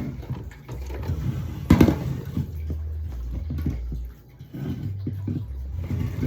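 Drink cans and bottles being handled and moved around while restocking a mini fridge: scattered knocks and clicks, with one louder clunk about two seconds in, over a low hum.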